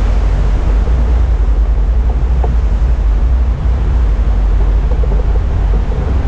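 Airflow of a hang glider in flight buffeting the glider-mounted camera's microphone: a loud, steady low rumble of rushing wind.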